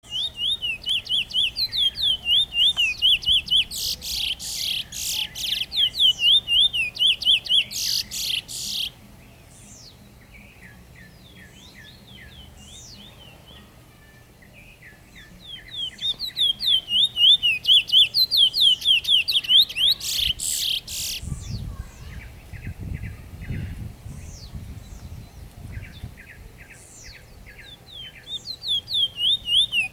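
Caged songbird known in Trinidad as a bullfinch, singing long, fast phrases of repeated high whistled notes. Its song comes in bouts with quieter gaps of several seconds, and fainter short trills are heard between them.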